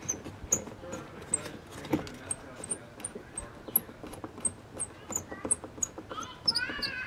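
Phillips screwdriver backing out a mounting screw of an old porch light fixture: a scatter of light irregular clicks and scrapes. Short high chirps repeat in the background.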